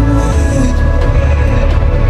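Background music: a slow, dark-toned track with sustained notes over a heavy bass.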